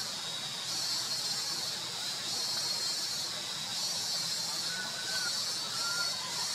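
Steady high-pitched drone of forest insects, swelling and easing every second or so, with two faint short high squeaks about five and six seconds in.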